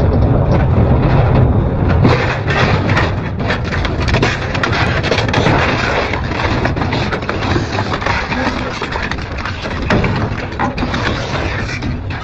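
Double-shaft industrial shredder running, a steady low drone under continual crunching and cracking as its cutters tear through material.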